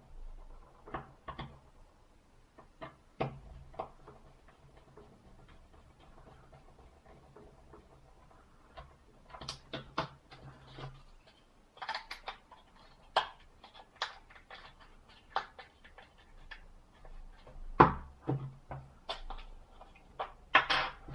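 Irregular small clicks, taps and knocks of plastic phone parts and a small screwdriver being handled, fitted together and set down on a work mat; the loudest knocks come near the end.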